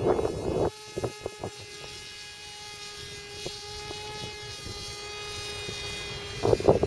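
Autogyro flying overhead and away, its engine a steady buzzing drone. Wind buffets the microphone at the start and again near the end.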